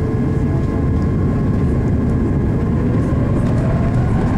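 Steady engine and airflow noise of an Airbus A340-600 on takeoff and climb-out, heard inside the cabin, with a faint tone rising slowly near the end. The aircraft is powered by four Rolls-Royce Trent 500 turbofans.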